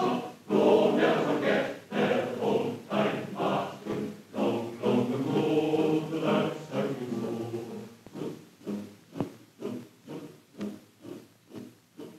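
Choir singing in the film's music score, with held, swelling chords. About two-thirds of the way through it gives way to a quieter, regular pulsing of about two beats a second that fades away.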